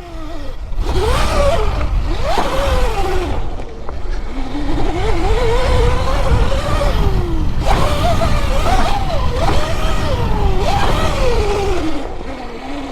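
Sur Ron electric dirt bike's motor whining, its pitch rising and falling again and again as the throttle is opened and closed, over a steady low rumble.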